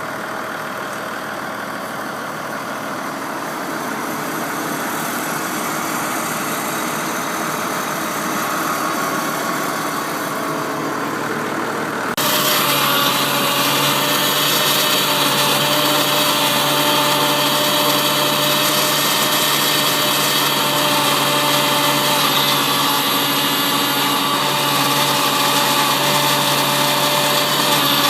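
Diesel engine of a New Holland TV-140 bidirectional tractor running steadily. About twelve seconds in the sound changes abruptly, becoming louder, with a stronger steady hum and more hiss.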